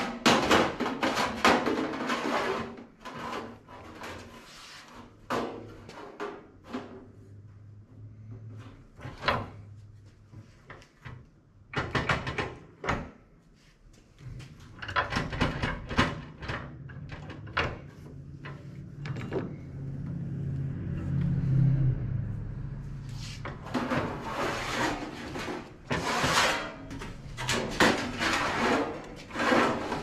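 Sheet-metal panels for an HVAC duct plenum clanking and rattling on a manual sheet-metal bending brake as they are slid in, clamped and bent, in several separate bursts of metal clatter. A low rumble lasts a few seconds past the middle.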